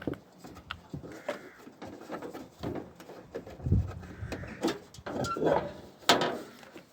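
Irregular knocks, clicks and scrapes of hand tools and of the van's front wing being handled while it is unbolted, louder in the second half.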